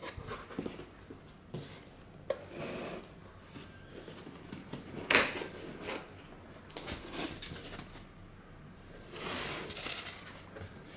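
A cardboard box being opened by hand: the lid and flaps lifted and folded back, with scattered rubbing and scraping of cardboard and a sharper knock about five seconds in.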